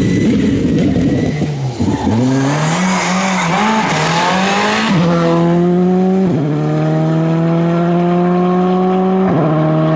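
Škoda Fabia R5 rally car's turbocharged four-cylinder engine at full throttle. It lifts and drops briefly about two seconds in, with hiss and tyre noise through the middle, then pulls hard with the pitch climbing steadily and dropping sharply at each of three upshifts.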